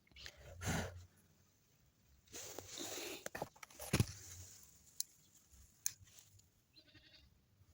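Scratchy rustling and scraping of hands working through soil and dry grass mulch around potato plants, in short spells, with a sharp snap about four seconds in and a smaller click near six seconds.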